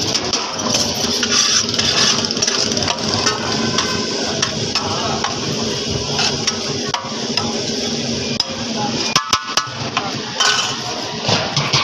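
Clatter of large aluminium cooking pots, their lids and serving utensils, with a few sharp metallic knocks and brief ringing about nine seconds in, over continuous background chatter.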